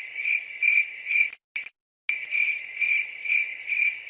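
Crickets chirping in an even pulsing rhythm, about two pulses a second, cutting out for about half a second near the middle.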